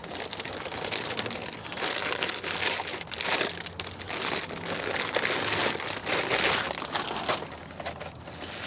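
Packaging crinkling and rustling in irregular bursts as it is handled around a new tail light being unpacked.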